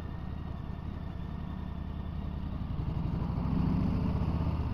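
2020 Harley-Davidson Street Bob's Milwaukee-Eight V-twin running through a Miller aftermarket exhaust while riding at low speed, a deep steady beat that grows louder about three seconds in. The speaker calls the sound really good. This is the restricted 48 PS version.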